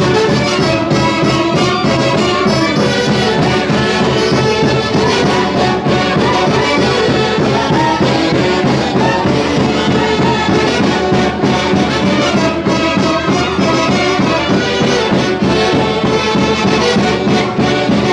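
Peruvian folk orchestra playing a Santiago-festival tune: wind instruments with a brass sound carry the melody together over a steady rhythm, without a break.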